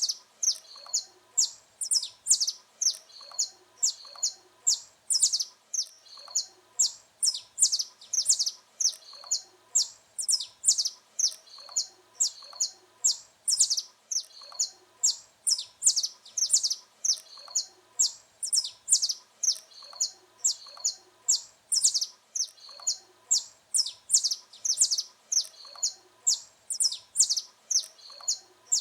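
Saffron finch singing: a continuous run of short, sharp, high-pitched chirping notes, about three a second.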